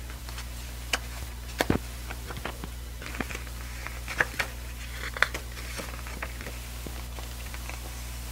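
Hands handling a CD's paper booklet and plastic jewel case: scattered light clicks and taps with soft paper rustling as the booklet is picked up and unfolded.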